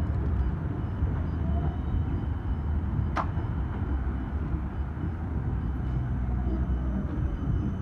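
Siemens Combino double-ended tram approaching along the rails: a steady low rumble, with faint thin whining tones and one sharp click about three seconds in.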